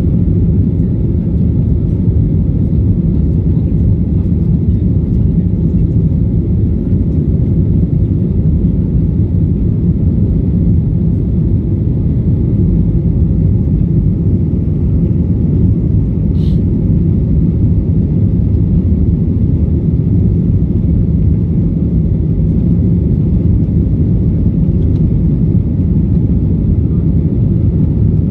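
Steady airliner cabin noise: an even, loud low rumble of jet engines and airflow heard from inside the passenger cabin.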